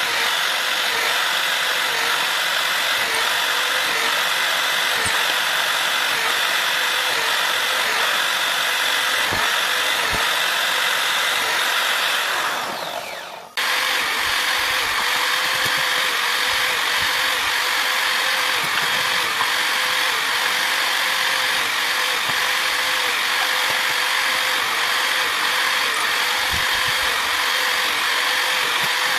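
Corded electric drill mounted in a drill stand running at speed while drilling holes in wooden pieces. About twelve seconds in it is switched off and winds down, falling in pitch, then starts again at once and runs steadily on.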